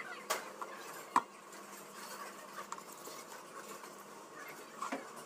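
A few light clicks and knocks, the sharpest just over a second in, over a faint steady background.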